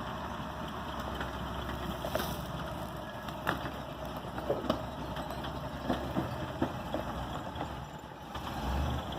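Off-road vehicle engine running at low revs, a steady low rumble, with scattered sharp clicks and knocks over it. The low rumble swells briefly near the end.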